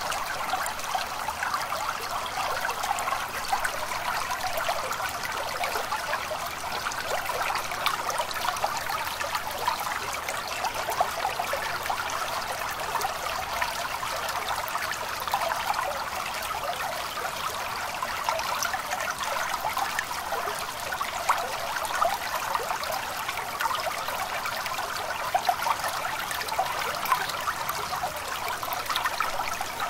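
Stream water trickling and babbling steadily.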